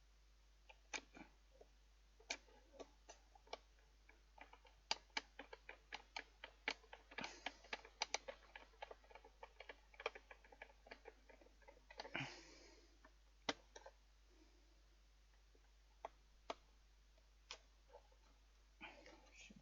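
Irregular clicks and taps of a screwdriver and the fan heater's plastic casing as screws are worked back into the case, busiest in the middle, with a short scrape about twelve seconds in.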